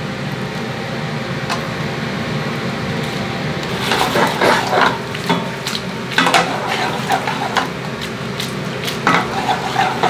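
Spaghetti being tossed through tomato sauce in a frying pan with tongs: the sauce sizzles steadily, and from about four seconds in metal tongs scrape and tap against the pan in quick clusters.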